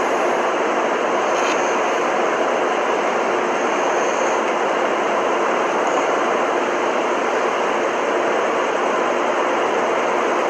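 Steady, unbroken rushing noise that holds at one level throughout.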